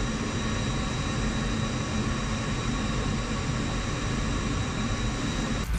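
Steady machinery drone with several constant whining tones, unbroken and even in level, from aircraft ground equipment or machinery running nearby.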